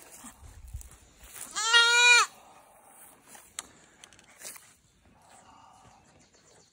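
A young goat kid gives a single loud, quavering bleat about a second and a half in, lasting under a second. It is the kid's protest at being pinned down for hoof trimming.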